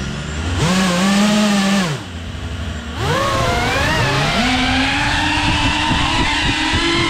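Cinewhoop FPV drone's electric motors and ducted propellers whining as the throttle changes. The pitch climbs about half a second in, drops back near two seconds, then rises again at about three seconds and holds higher as it flies.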